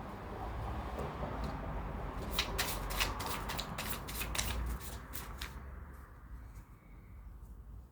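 Tarot deck being shuffled by hand: a quick run of papery card clicks starting about two seconds in and lasting about three seconds.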